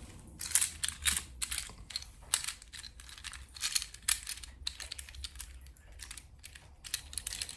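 Irregular light clicks and clacks of small plastic fidget toys being handled, with some faint rustling.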